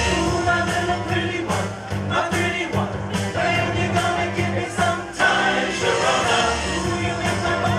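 Men's chorus singing an upbeat pop song together over an amplified backing track with a bass line and a steady drum beat.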